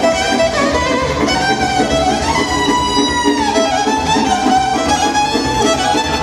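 Live band playing Romanian hora dance music through PA speakers. A lead melody slides downward about three seconds in, over a steady accompaniment.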